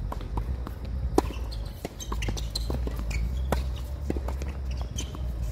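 Tennis ball struck by rackets and bouncing on the court in a doubles rally: a string of sharp pops, the loudest about a second in and another at about three and a half seconds.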